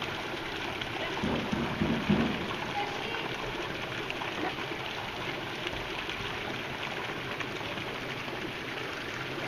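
Steady splashing rush of water from a town-square fountain's spouts pouring into its basin, with a brief low rumble about one to two seconds in.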